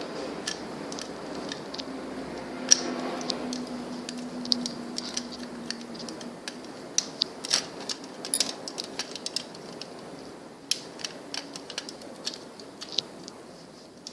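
Irregular small clicks and rattles of rubber loom bands and a hook being worked off the pegs of a plastic band loom.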